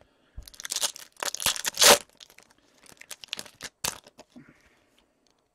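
A hockey card pack wrapper being torn open by hand: a run of loud rips and crinkles through the first two seconds, then quieter crinkling with one sharp crackle near four seconds.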